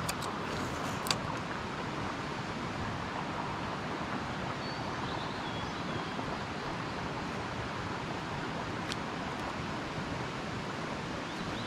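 Steady rushing outdoor background noise, with a few sharp clicks, the loudest about a second in and another about nine seconds in.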